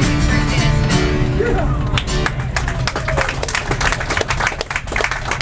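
Acoustic guitar playing in a flamenco-like style, chords ringing at first and then quick, sharp strokes, with a voice in the mix.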